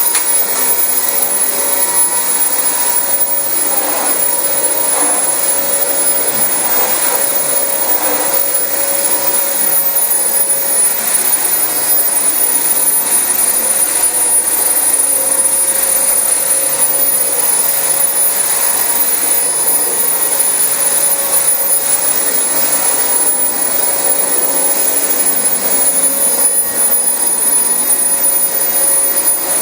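Dyson DC25 upright vacuum cleaner running steadily while vacuuming carpet: a constant rush of air with a high whine over it.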